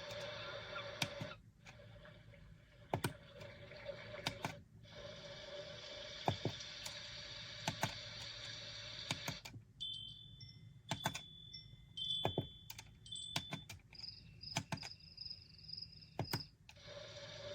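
Built-in sleep or nature sounds of an i-box Dawn alarm clock playing through its small speaker, switching to a different sound every few seconds with sharp clicks of its buttons. Several hissy, rushing tracks play first, then a stretch of short high chirping or beeping tones in the middle, and a hissy track returns near the end.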